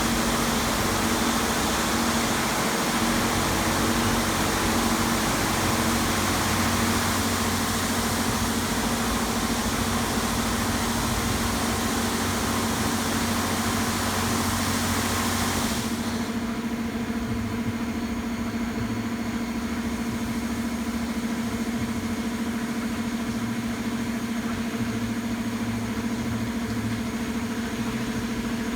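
Touchless automatic car wash machine running: a loud hiss of high-pressure spray over a steady motor hum. The spray cuts off abruptly about halfway through, and the hum carries on.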